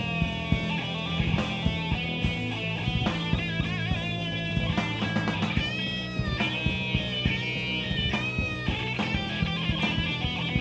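Live rock band playing an instrumental passage with no vocals: guitar notes that bend and waver in pitch, over a steady stream of drum hits and a held bass.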